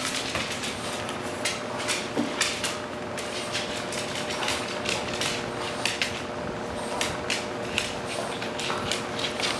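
French bulldog's claws clicking and tapping irregularly on a hardwood floor as it scrambles after and noses a ball, with the ball knocking against the floor. A faint steady hum runs underneath.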